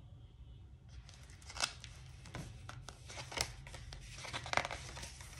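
A hardcover picture book being handled and opened: rustling and paper sounds, starting about a second in, with a few sharp taps and clicks.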